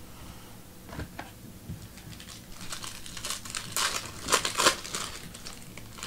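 Crinkling and rustling of a trading card pack wrapper being handled, in a cluster of crackles that builds to its loudest a little past the middle.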